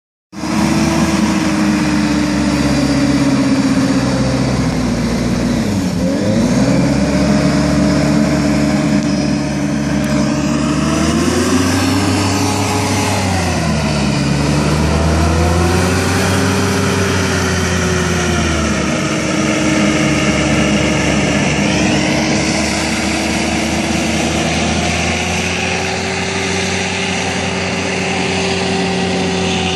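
AeroCruiser SA 1100 hovercraft's engine and fan running steadily. The pitch dips and climbs a few times in the first half as the throttle is eased and opened, then holds fairly steady.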